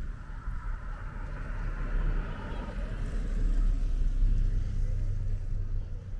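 A car driving past close by, its engine and tyre rumble growing louder to a peak about four seconds in, then easing off.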